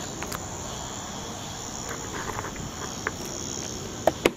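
Outdoor insect chorus, a steady high-pitched chirring, with two sharp taps near the end.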